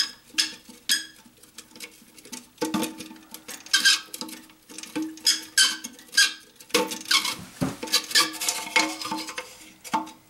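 Plastic and rubber parts of a toilet's flush valve being handled and fitted back together inside the ceramic tank: irregular clicks, taps and short scraping rubs.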